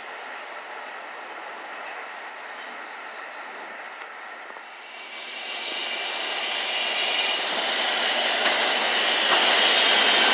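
New York City Subway R160 train approaching, faint at first, then from about five seconds in growing steadily louder as it comes alongside, with a high steel-wheel squeal over the rolling noise.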